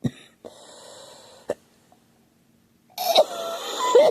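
A girl coughing: one short, sharp cough at the start, then a longer, harsher coughing bout with a strained voice about three seconds in.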